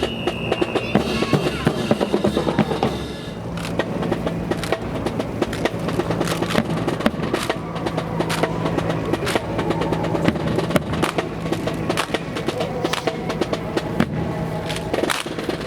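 Drum-led music with many sharp snare-drum strokes and a held low note through the middle.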